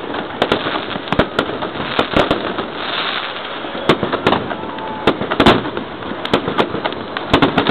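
Fireworks going off overhead: an irregular barrage of sharp bangs and cracks, about two a second, over a continuous crackling din.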